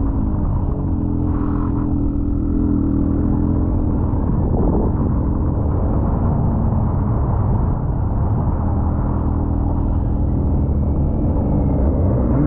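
Snowmobile engine running at a steady pitch.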